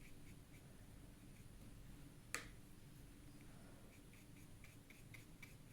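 Near silence with faint, scattered small ticks and one sharp click a little over two seconds in: light handling sounds at a painting table.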